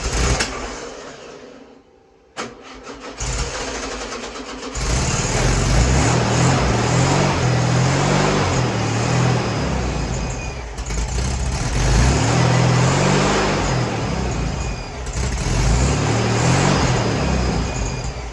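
Freshly rebuilt air-cooled VW Beetle 1641cc dual-port flat-four engine sputtering in short bursts, then catching about five seconds in and running with the revs rising and falling.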